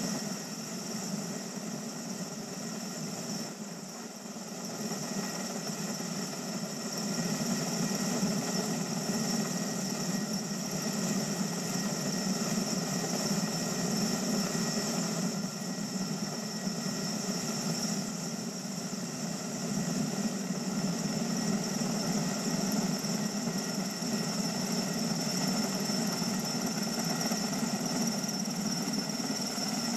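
Erickson S-64 Aircrane heavy-lift helicopter running steadily: a constant high turbine whine over a low drone. It grows a little louder about seven seconds in.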